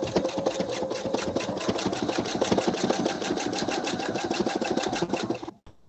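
Pfaff computerized sewing machine stitching at a steady fast rhythm as a quilt is fed under the needle for free-motion quilting, stopping abruptly near the end.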